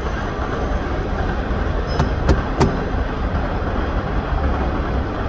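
Steady low vehicle rumble, with three sharp clicks in quick succession a little after two seconds in.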